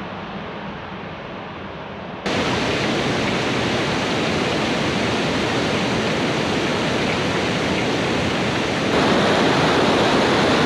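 Fast mountain river rushing over rocks, a steady noise of white water. For the first two seconds it is duller and quieter. It then jumps louder and fuller, and louder again near the end.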